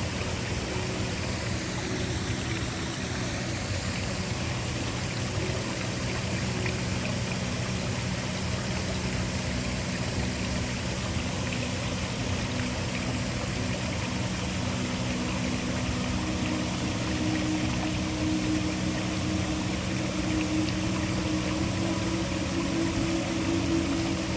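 Waterfall rushing steadily, with low sustained tones of a droning background ambience underneath.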